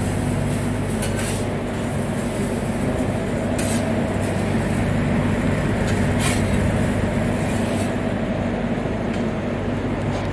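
Steady low machine hum of commercial kitchen equipment, with a few short hisses from the flat-top griddle as the cook works a bun on it with a spatula.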